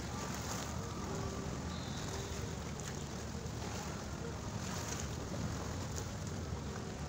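Small tidal-flood waves washing and lapping over a flooded concrete shoreline, with wind buffeting the microphone as a steady low rumble.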